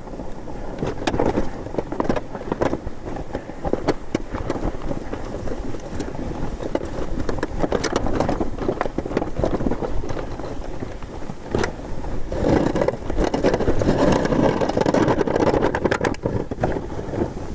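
Snowracer ski sled's skis hissing and scraping through powder snow, with many small knocks from bumps along the way; it gets louder from about twelve to sixteen seconds in.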